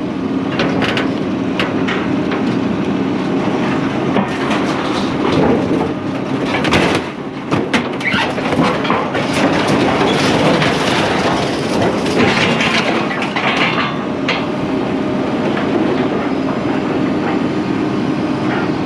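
Scrap metal clanking and clattering as pieces are thrown off a trailer, with many sharp knocks over a steady low hum.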